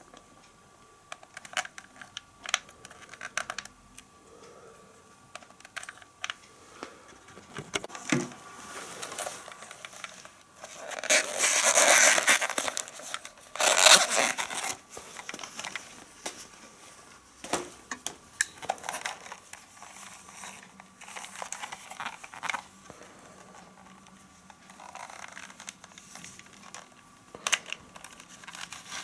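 Rustling and crinkling with scattered clicks and scrapes, as of things being handled, with two louder rustling spells near the middle.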